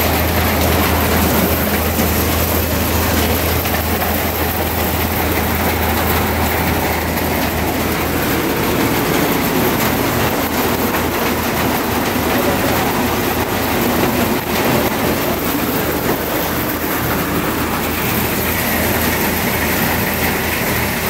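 Agricultural machine working pigeon peas (kandhulu), running steadily with a continuous dense clatter over a low motor hum; the hum weakens about eight seconds in.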